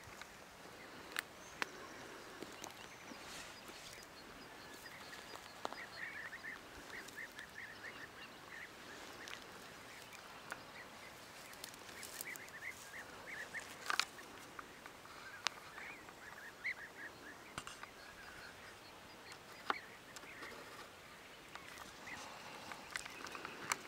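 Wild animals calling outdoors in quick runs of short, repeated high notes, with a few scattered sharp clicks.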